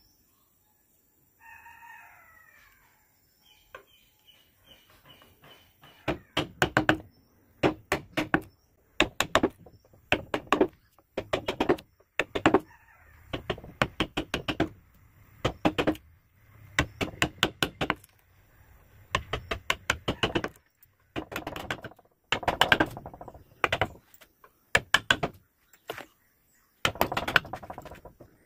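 Wood chisel being struck in quick bursts of several sharp taps, about every one and a half to two seconds from about six seconds in, cutting away the background wood of a relief carving. A chicken calls once about two seconds in.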